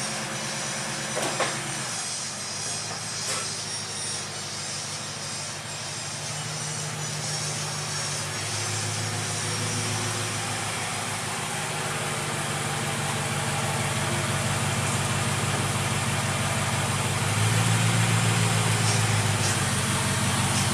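A motor vehicle running with a steady low engine drone and road noise. The drone shifts pitch a few times and slowly grows louder.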